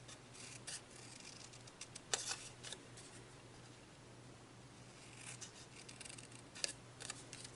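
Scissors snipping paper in short, quiet cuts, a few scattered clusters of snips while a piece is trimmed.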